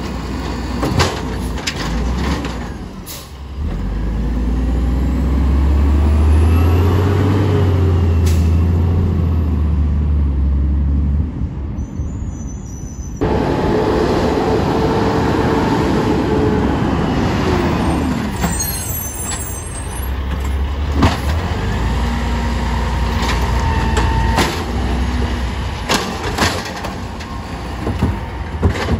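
Automated side-loader garbage truck working the street. Knocks and clatter come as its hydraulic arm handles a recycling cart, then the engine revs up and down for several seconds. Later the truck drives on and idles.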